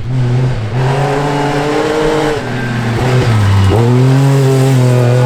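Rally car engine running hard at high revs. It lifts off briefly about three seconds in, then comes back on the throttle and holds.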